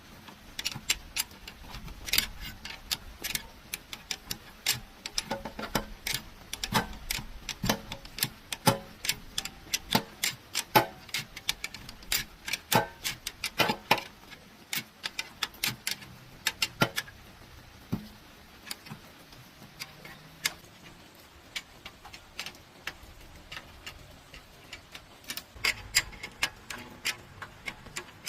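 Hand tools clicking and tapping against metal parts: a sharp, irregular clatter of single clicks, one to three a second, some ringing briefly.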